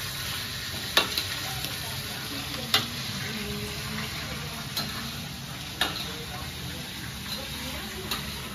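Fish pieces sizzling in hot oil in a wok while a metal spatula stir-fries them, with several sharp clinks of the spatula against the wok.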